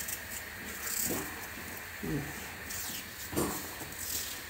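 Small kitchen knife cutting partway into small cucumbers held in the hand: a few short, soft cuts spaced about a second apart.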